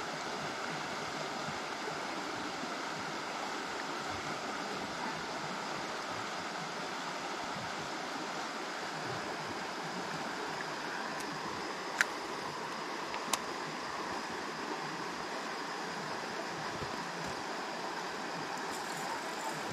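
Creek water running steadily, with two sharp clicks a little over a second apart past the middle.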